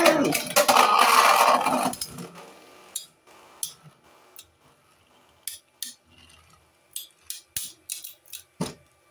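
Two Beyblade spinning tops, one of them 3D printed, grinding and clattering against each other on a plastic stadium floor for the first two seconds or so. The sound then dies down to scattered light clicks as the tops slow down and come to rest.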